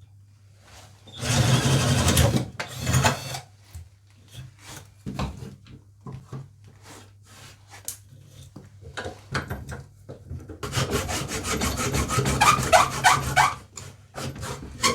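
Wood being worked by hand with a tool scraping across it in repeated strokes. The strokes are loudest for about a second starting about a second in, and again in a longer run of quick strokes near the end, with fainter single strokes in between.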